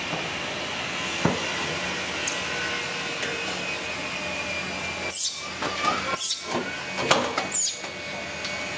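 Water splashing and dripping in an aluminium basin as a soapy baby macaque is washed in it, with several short splashes in the second half. A steady machine-like whir runs underneath.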